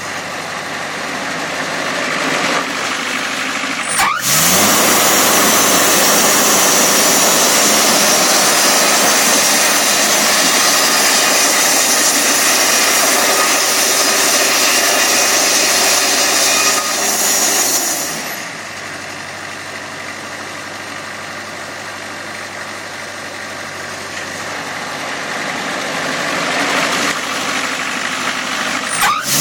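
Portable sawmill running with its engine steady. About four seconds in, a much louder stretch of sawing noise starts suddenly and lasts until about eighteen seconds. The sound then drops to quieter running and builds again near the end.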